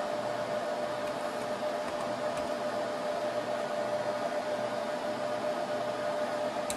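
Server cooling fans running steadily, a constant hiss with a steady whine and low hum. A single click near the end.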